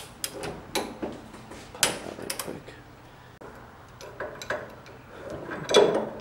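Scattered metal clinks and clacks of hand tools on a steering rack clamped in a vise: a socket being lifted off and a ratchet wrench fitted onto the rack housing's nut.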